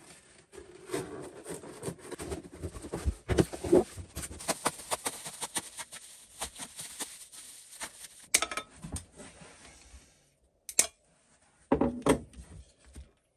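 A parcel being unpacked by hand: rustling packaging with many sharp clicks and light knocks, pausing near the end and then a brief rustle.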